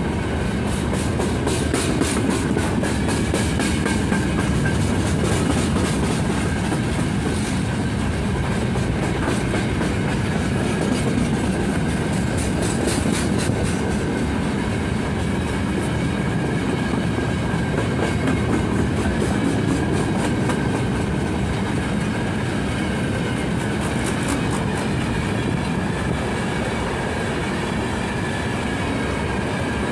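Open-top gondola wagons of a long freight train rolling past at close range: a steady rumble with the wheels clicking rhythmically over the rail joints.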